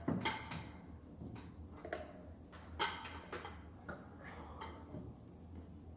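Handling of a plastic motor-oil bottle as it drains into a funnel: a few irregular light clicks and taps over a low steady hum.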